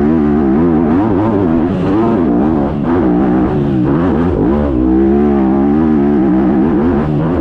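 Yamaha YZF motocross bike's four-stroke single-cylinder engine, heard loud up close, revving up and backing off again and again as the rider works the throttle along the track, with a brief drop in revs about halfway through.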